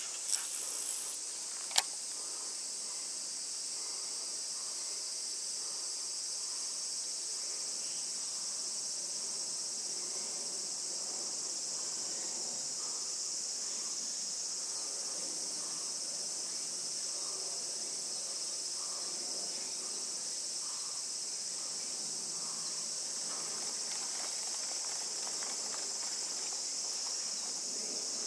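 Steady high-pitched chorus of summer insects buzzing without a break. Two sharp clicks in the first two seconds, the second, just under two seconds in, the loudest sound.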